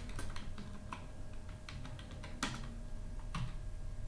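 Typing on a computer keyboard: a quick, uneven run of key clicks with a couple of heavier keystrokes.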